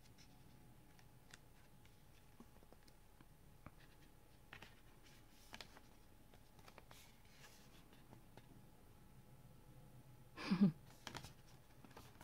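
Quiet handling of a folding paper photo postcard as its panels are opened: faint scattered clicks and taps of card stock. About ten and a half seconds in there is one brief louder sound that falls in pitch.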